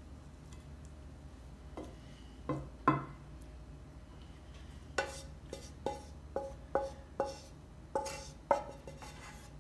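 A spatula knocks and taps against a frying pan and plate while pushing cooked shrimp out of the pan. There are a few knocks, the loudest about three seconds in, then from about five seconds in a run of about nine quick taps roughly half a second apart, each ringing briefly.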